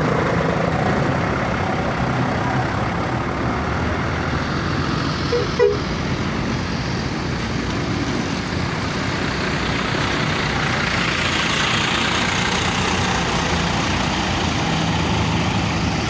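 Diesel engines of parked tour coaches idling, a steady low hum, with a short horn toot about five and a half seconds in.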